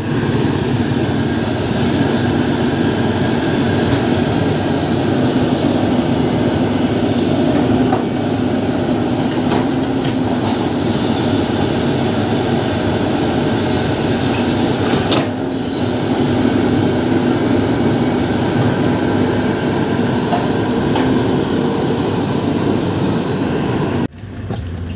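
Crawler excavator's diesel engine running steadily at close range, a loud, even drone with a few light clicks and knocks, breaking off sharply near the end. The machine is running after a repair.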